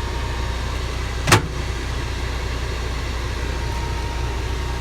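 Small microwave oven running on a power inverter: a steady hum with a thin steady whine, and one sharp click about a second in.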